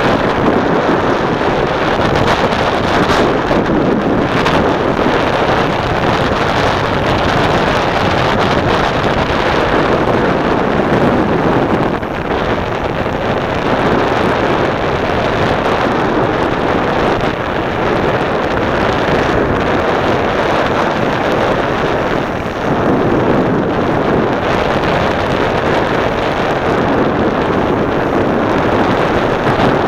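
Steady rush of wind on the microphone of a camera carried by a downhill skier, mixed with the hiss of skis running over groomed snow. The noise dips briefly twice.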